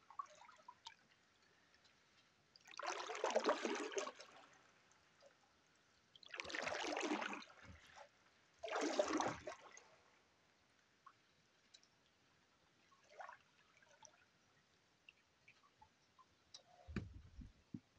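Three paddle strokes pulling an aluminium canoe through calm water, each a swishing splash about a second long, a few seconds apart. A short low thud near the end.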